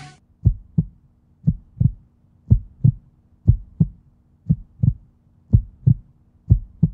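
Heartbeat sound effect: paired low lub-dub thumps, about one pair a second, over a faint steady hum.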